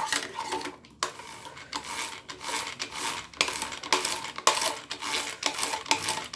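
A manual beater whipping dalgona coffee (instant coffee, sugar and water) in a bowl. It clinks repeatedly against the bowl in quick, uneven strokes while the mixture is beaten toward a thick foam.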